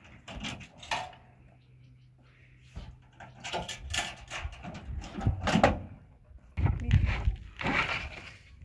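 Old wooden boards pulled from a pickup truck's bed and dropped onto a pile on the ground: a string of irregular wooden knocks and clatters, busiest in the second half.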